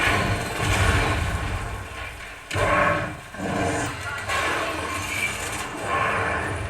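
A JBL Cinema SB150 2.1 soundbar and its subwoofer playing test audio at a fair volume, with a heavy, steady bass and sudden loud booms about two and a half and four seconds in.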